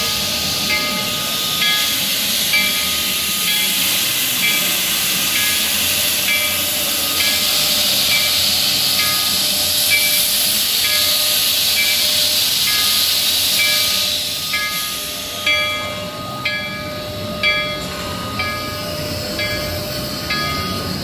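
Denver & Rio Grande Western narrow-gauge steam locomotive #340 standing with steam hissing from its cylinders. A regular ringing strike, about one a second, sounds over the hiss, typical of the locomotive's bell. The hiss eases about two-thirds of the way through while the strikes go on.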